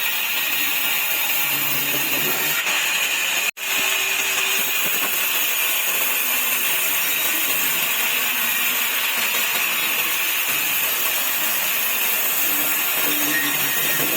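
Sawmill saw cutting through wood: a steady, loud, hissing whine, with the sound breaking off for an instant about three and a half seconds in.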